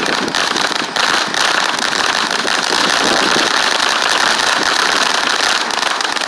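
Several small sparkling fireworks burning at once: a steady hiss dense with fast crackling.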